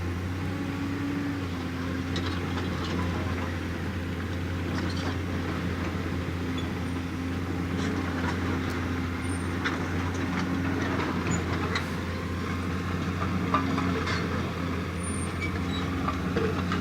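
JCB backhoe loader's diesel engine running steadily while the machine works, with scattered light clanks and scrapes.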